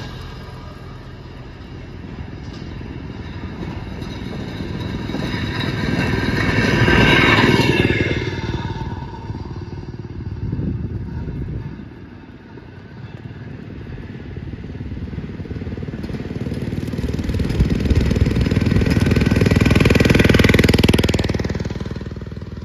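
Rail speeders (small track motorcars) running past one after another, two passing close: each engine gets louder as it approaches, drops in pitch as it goes by, and fades away.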